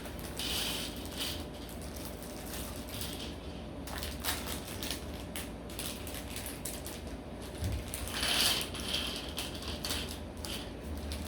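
Small plastic LEGO pieces clicking and rattling as bags of parts are opened and handled, with plastic bags crinkling loudest about half a second in and again around eight and a half seconds in.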